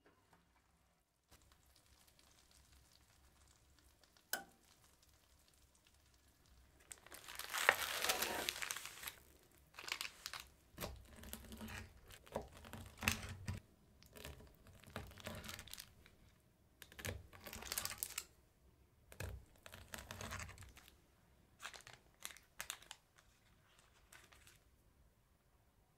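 A knife cutting a freshly baked almond florentine on parchment paper: a series of crackling, crinkling strokes through the caramel-coated sliced almonds and cookie base, the longest about eight seconds in. A single sharp click comes a few seconds before the cutting.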